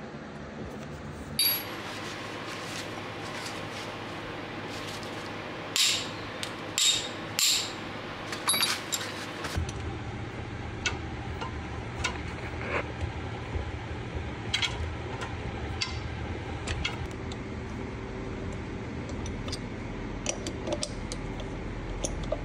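Metal tools and parts being handled, with a scatter of sharp clinks and knocks, thickest between about six and nine seconds in. A steady low hum starts about ten seconds in and runs under the later clinks.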